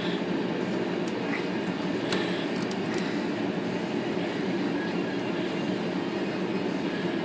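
Steady low whooshing background noise, like a room air conditioner or fan, with a few faint light clicks from small metal parts being handled, about one, two and three seconds in.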